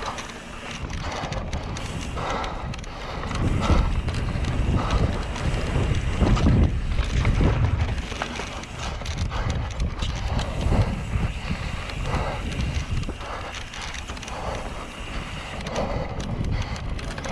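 Mountain bike riding down a dirt flow trail: tyres on dirt, the bike rattling and knocking over bumps, and wind buffeting the microphone.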